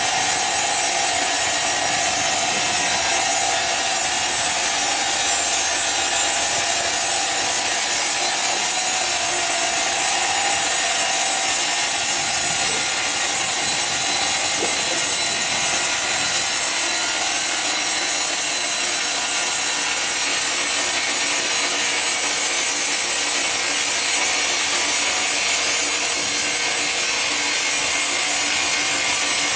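Powered sawing machine cutting ironwood: a steady, high-pitched rasping of the blade through the hard wood, running without a break.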